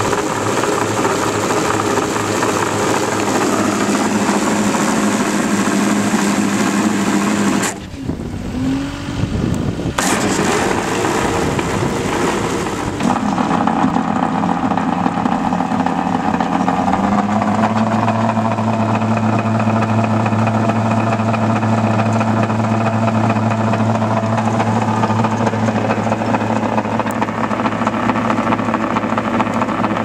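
Skid steer engine running steadily, with a short dip in level about eight seconds in and its note shifting twice later on, at about thirteen and seventeen seconds in.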